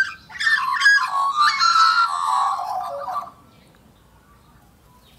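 Australian magpies carolling: a rich warbling song of many overlapping notes lasting about three seconds, then it stops.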